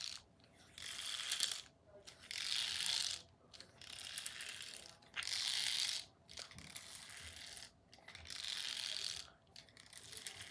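Fidget tree toy being worked, giving rapid ratcheting clicks in bursts of about a second, repeated about seven times with short pauses between.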